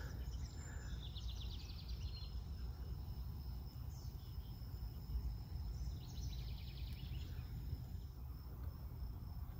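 Quiet outdoor summer garden ambience: a low steady rumble, a faint steady high tone, and a rapid high-pitched trill heard twice, about a second in and again about six seconds in.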